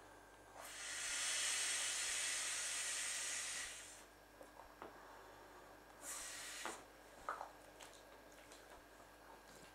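Breath blown by mouth into the valve of an inflatable vinyl clownfish pool toy: one long rush of air lasting about three seconds, then a shorter rush of breath about six seconds in.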